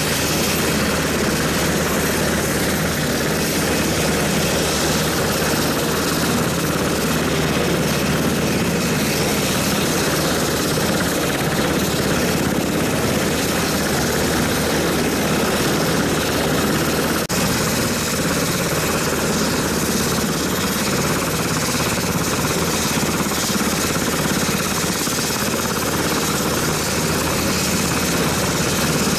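Sikorsky Seahawk helicopter running on the ground with its rotors turning: a loud, steady engine and rotor noise with a thin high whine over it. The sound breaks for a moment about seventeen seconds in.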